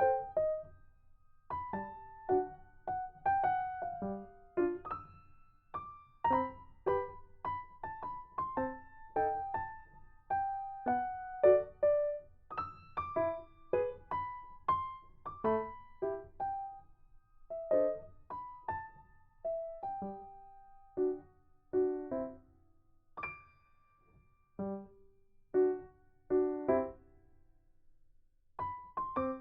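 Background music: a gentle piano melody of short, separate notes.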